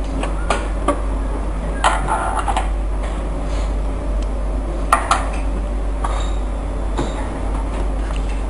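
A few light metallic clinks and clicks, with a short cluster about two seconds in and a pair about five seconds in, over a steady low hum; the sewing machine is not stitching.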